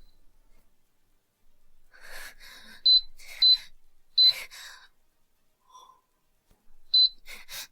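Four short, loud, high electronic beeps, spaced irregularly, amid heavy gasping breaths.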